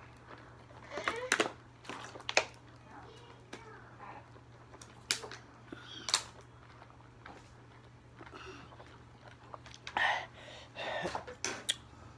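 Short, sharp breaths and air blown through pursed lips from people whose mouths are burning from an extremely hot chili lollipop, with low muttering about ten seconds in. A steady low hum runs underneath.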